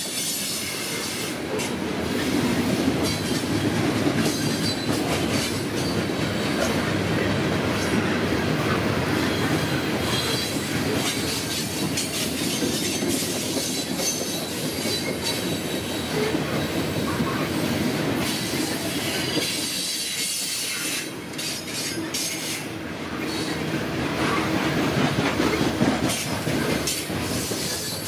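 Loaded coal hopper cars rolling past on the rails: a steady rumble and clatter of steel wheels over the track, with a thin high wheel squeal coming and going.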